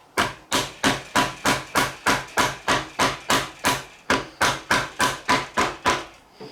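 Rapid, evenly spaced hammer blows on metal, about three a second, around twenty strikes each with a short ring, stopping about six seconds in: knocking a glued-on heated grip off a motorcycle handlebar.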